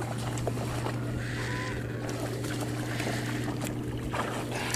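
Steady low hum of a bass boat's electric trolling motor, with a few light knocks on the boat.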